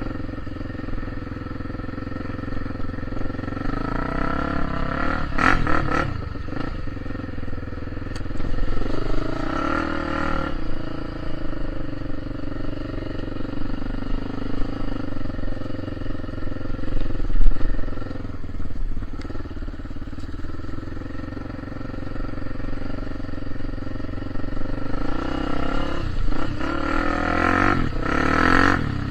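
A motor vehicle's engine running steadily and revving up several times: about four seconds in, again around ten seconds, and once more near the end.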